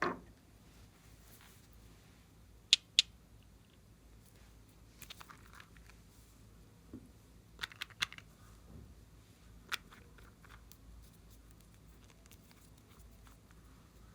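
A few sharp clicks and short light crackles from handling slime and makeup materials by hand, two loud clicks close together about three seconds in, over a quiet room tone.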